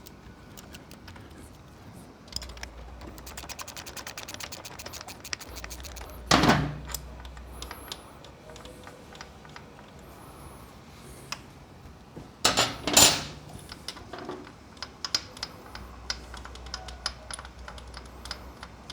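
Hand tools working on a motorcycle engine nut: a socket ratchet clicking in a fast, even run, with two loud metal clunks about a third and two-thirds of the way through and scattered sharper ticks of metal tools near the end.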